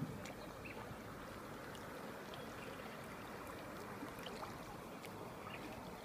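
River water lapping and trickling close by, with scattered faint ticks and a soft knock right at the start.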